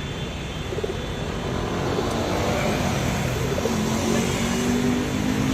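Intercity bus passing on the road, its engine running over traffic noise; it grows louder about two seconds in and settles into a steady engine hum.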